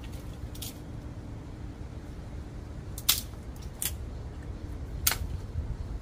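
Four sharp cracks of dry wood in a wood cooking fire over a low steady rumble, the loudest a little past halfway.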